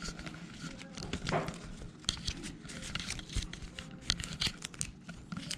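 Crinkling and a scatter of small sharp clicks, as of things being handled close to the microphone.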